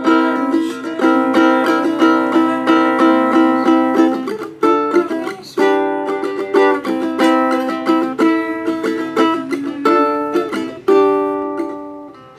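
Ukulele strummed in chords, the player relearning after years away and working a tune out by ear. The chord changes several times, and the strumming dies away near the end.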